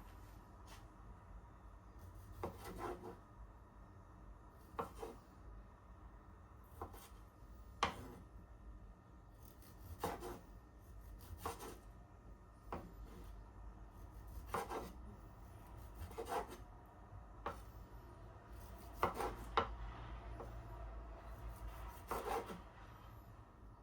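A series of short scraping, rubbing strokes, about one every one to two seconds, some in quick pairs.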